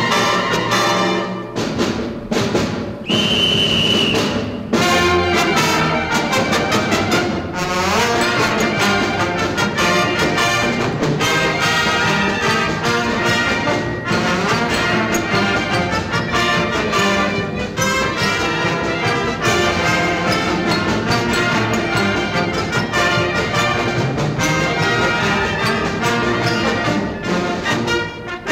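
Instrumental music led by brass, with trumpets and trombones over a band or orchestra, playing continuously. A short high held note stands out about three seconds in.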